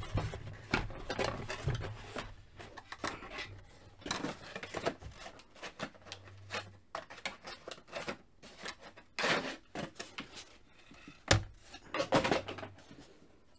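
Cardboard packaging and a plastic toy spaceship being handled and worked free: irregular rustling and scraping with light clicks, and a few louder knocks in the second half.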